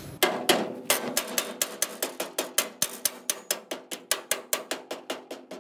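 A mallet strikes the steel rear torsion-bar spring plate of a VW Karmann Ghia chassis in quick, even blows, about four a second, while the plate is being worked into place above its stop.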